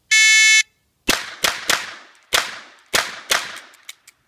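An electronic shot-timer start beep lasts about half a second. Six shots from an Armscor M200 .38 Special revolver follow, the first coming about a second after the beep, in two quick groups of three, with a little echo after each. Two faint clicks come near the end.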